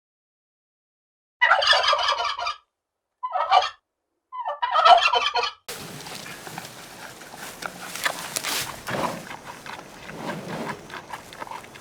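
Turkey gobbling: three rattling gobbles in the first half. They are followed by a quieter stretch of steady background noise with scattered clicks.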